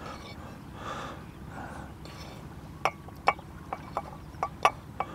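Metal frying pan knocking against the rim of an enamel camp mug as whitebait is scraped from the pan into beaten egg: faint soft sounds at first, then about seven sharp clinks from about three seconds in.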